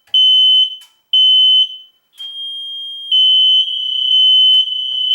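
Kidde hard-wired smoke alarm sounding its press-and-hold test: two loud, high-pitched beeps of about half a second each, then from about two seconds in an unbroken alarm tone that gets louder about a second later.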